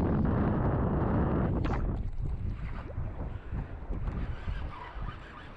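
Wind buffeting the microphone, a loud rumbling gust for about the first two seconds that then eases into weaker, uneven gusts.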